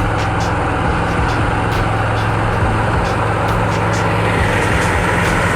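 Diesel engines of an old log truck and a pushing bulldozer running steadily under load: a continuous low engine drone with faint irregular ticks above it.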